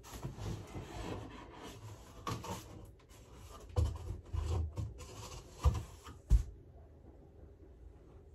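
Cardboard shipping box being opened and its packing handled: scraping and rubbing of cardboard, with two sharp knocks about two-thirds of the way through, then only faint handling.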